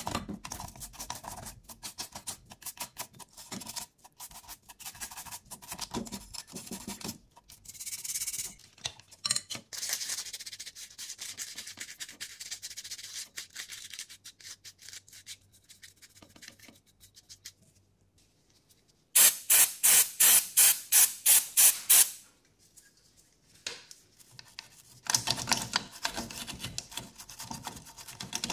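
Toothbrush scrubbing an old TV's wet circuit board and small speaker in quick back-and-forth strokes. The loudest stretch is a run of about a dozen hard strokes, some four a second, about two-thirds of the way through.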